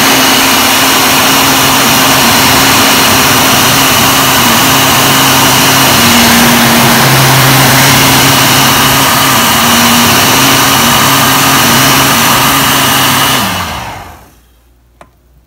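Electric heat gun running, a loud steady blowing rush over a low motor hum, as it shrinks heat-shrink tubing over soldered wire splices. About 13 seconds in it is switched off and winds down quickly.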